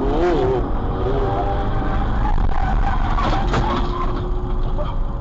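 Steady road and engine rumble of a car driving at highway speed, heard from inside the cabin. A few sharp knocks come about three seconds in, and a short wavering voice-like call is heard near the start.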